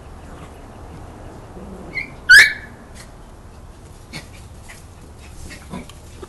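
Small dog giving one sharp, high-pitched yelp about two seconds in, just after a brief squeak, during rough play-wrestling with another small dog.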